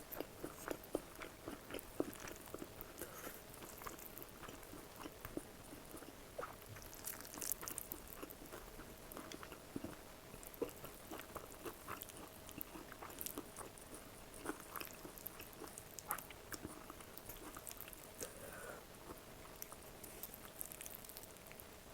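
Close-miked eating: quiet chewing and biting with many small, irregular wet mouth clicks, over a faint steady hum.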